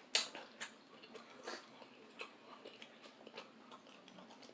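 Close-miked eating of a seafood boil: chewing and mouth sounds with scattered sharp clicks and smacks, the loudest one right at the start.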